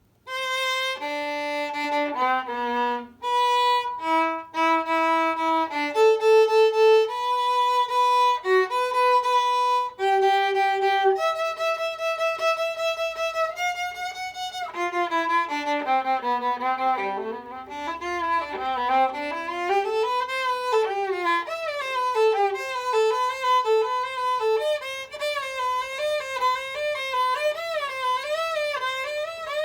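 Solo violin playing unaccompanied: it starts suddenly with a phrase of separate held notes, then from about halfway moves into quick running passages with wide, wavering pitch.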